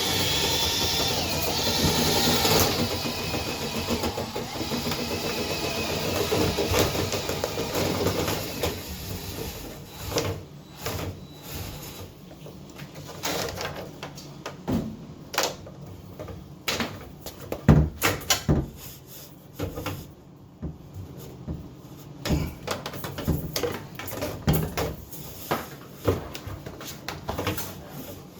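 Power drill spinning a rotary dryer-vent cleaning brush on extension rods inside the vent duct, a steady run that stops about nine seconds in. After that, scattered knocks and clatter from the rods and brush being handled.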